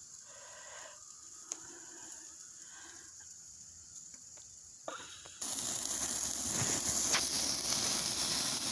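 Faint outdoor quiet, then about five seconds in a steady sizzling starts abruptly and continues: ribeye steaks searing on a charcoal grill, with a flame flaring up under them.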